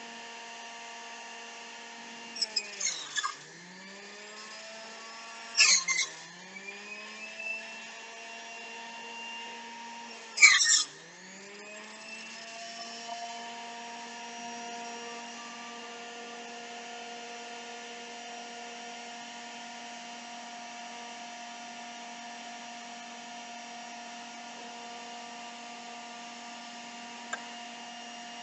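Electric juicer motor running with a steady hum. Three times, about 3, 6 and 10 seconds in, produce is pushed through with a loud grinding crunch and the motor's pitch drops sharply under the load, then climbs back. A single click comes near the end.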